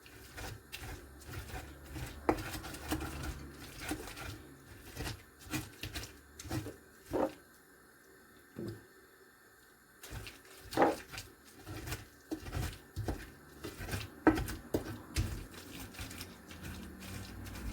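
Irregular knocks and scrapes of cooked garden egg and chili being ground by hand with a traditional grinder, with a short lull about eight seconds in.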